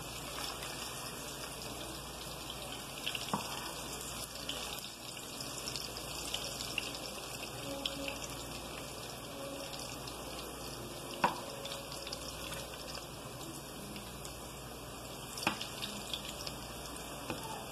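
Plantain slices sizzling steadily as they fry in butter in a pan, with a few sharp clicks of the spatula against the pan as the slices are turned.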